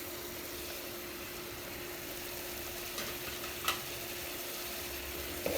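Mutton, tender tamarind leaves and raw mango pieces frying in oil in a pressure cooker, a steady sizzle, with two light utensil clicks about three and three-and-a-half seconds in.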